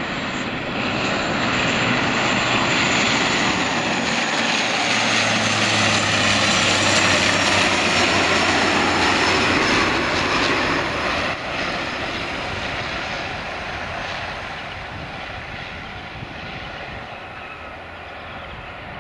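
Engines and propellers of a Bombardier Dash 8-Q400 turboprop airliner on landing, its two Pratt & Whitney PW150A turboprops loud as it passes low, with a steady low hum. The sound drops suddenly about eleven seconds in, then fades as the aircraft rolls away down the runway.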